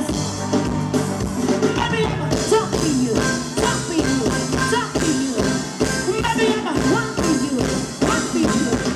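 Live band playing an upbeat dance number with a steady beat.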